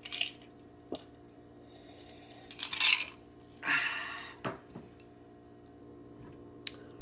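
A glass mug being drunk from and handled, with a few short clinks and knocks and some brief breathy, rushing noises in between. A steady low hum runs underneath.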